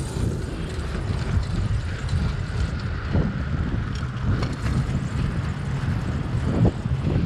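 Wind buffeting the microphone of a camera riding on a moving bicycle: a steady low rumble, with a few light knocks along the way.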